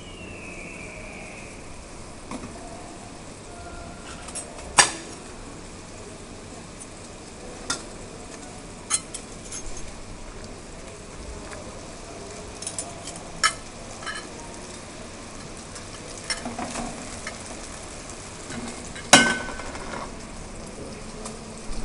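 Sauce sizzling softly in a stainless steel frying pan over a gas burner while a metal spoon stirs cream into it. The spoon clinks sharply against the pan several times, loudest about five seconds in and again near the end.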